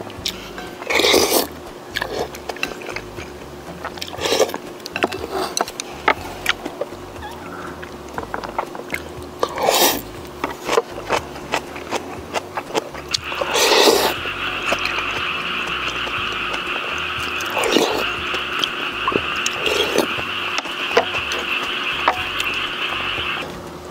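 Close-miked eating: chewing and slurping, with light clicks of a wooden spoon and chopsticks against bowls and a pan. About halfway in, a steady buzzing animal call starts in the background and carries on, breaking off briefly near the end.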